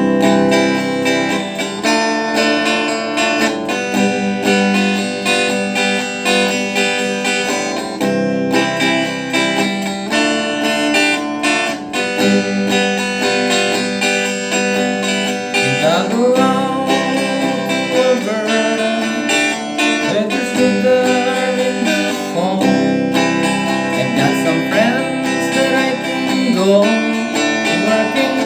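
Country-folk song played on strummed acoustic guitar, with notes that slide in pitch joining in from about fifteen seconds in.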